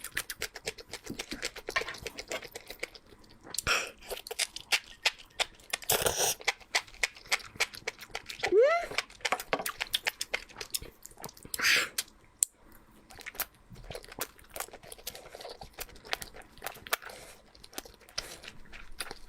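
Close-up eating sounds: steady chewing and crunching with wet mouth clicks, with louder crunchy bites about six and twelve seconds in. A short rising hum from the eater comes between them.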